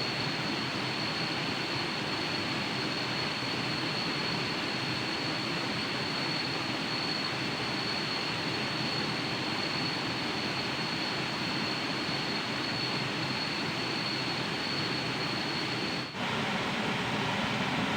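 Steady rushing roar of a waterfall, with a thin, steady high whine on top that cuts off abruptly about sixteen seconds in.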